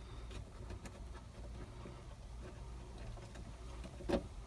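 Faint clicks and taps of hands working small screws into a plastic lower dash panel, with one louder knock about four seconds in.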